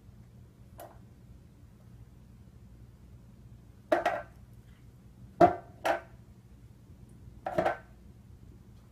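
Catnip canister knocking against the tile floor and baseboard as a cat pushes its head into it: a faint tap, then four sharp knocks with a short ring, two of them close together about midway.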